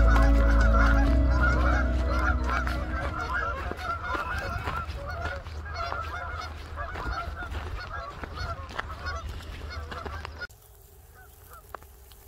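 A flock of Canada geese honking in many overlapping calls as they fly off, the honking fading with distance. About ten seconds in it drops to a few faint, far-off honks.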